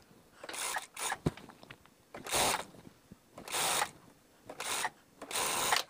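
Industrial lockstitch sewing machine running in several short stop-start bursts, each under a second, while piping is stitched onto a fabric edge.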